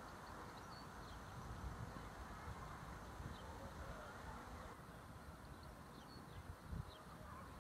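Wind gusting on the microphone as a low, uneven rumble, with a few faint, short bird chirps.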